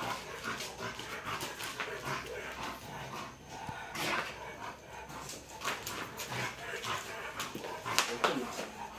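Alaskan Malamute vocalizing during rough play, with many short sharp clicks and scuffs. It is louder about four seconds in and again near the end.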